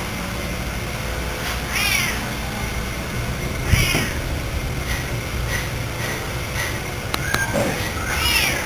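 An animal calling three times, short high calls that rise and then fall in pitch, over a steady low hum.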